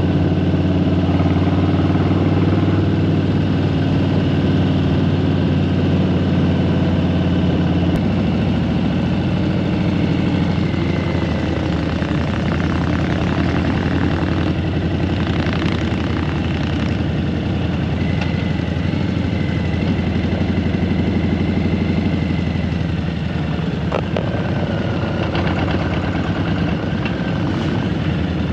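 Motorcycle engine running steadily under way, heard from the rider's seat behind a fairing windshield. The engine note steps to a new pitch about eight seconds in, and the sound eases a little near the end as the bike slows.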